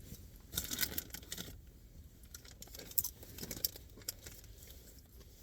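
Crinkly rustling of a snack bag of popcorn being handled: a burst of crinkling starts about half a second in, followed by a few separate sharp crackles.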